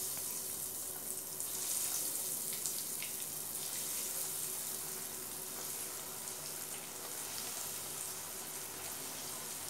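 Breadcrumb-coated cheese balls deep-frying in hot oil in a kadhai: a steady sizzle that swells a little about a second and a half in as more balls go into the oil.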